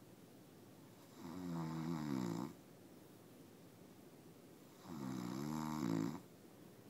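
A man snoring in his sleep: two long snores, each over a second, about four seconds apart, each with a wavering pitch that rises and falls.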